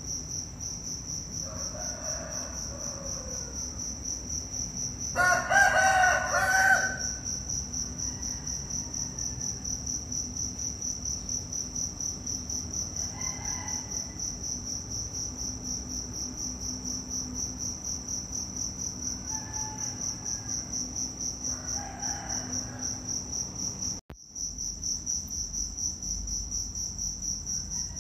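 Insects calling in a steady high-pitched, fast-pulsing buzz. About five seconds in, a louder pitched sound lasts about a second and a half.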